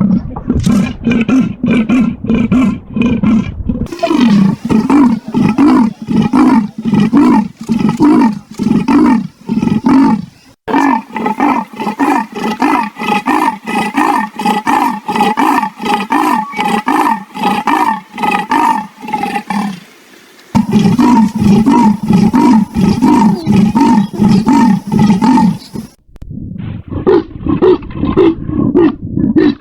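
Leopard rasping 'sawing' calls: a fast series of harsh, pitched strokes, about three a second. They break off abruptly and resume several times.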